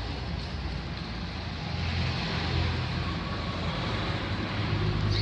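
Car engine running steadily, a little louder through the middle.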